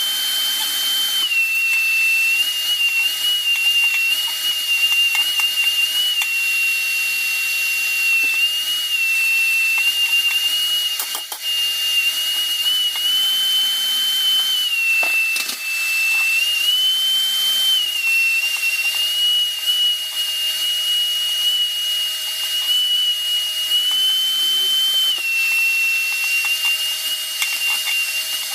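Vacuum cleaner running with a steady high whine that steps up slightly in pitch and back down every few seconds, as it sucks calcium scale out of an electric water heater tank through an improvised PVC pipe and hose. Scattered clicks and rattles come from loose scale drawn up the pipe.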